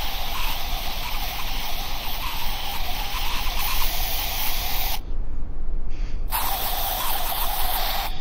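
A steady hiss like a spray, over a low hum, breaking off for about a second around five seconds in.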